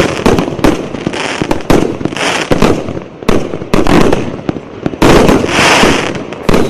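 Fireworks display in full flow: rapid, overlapping shell bursts and crackling, several loud bangs a second.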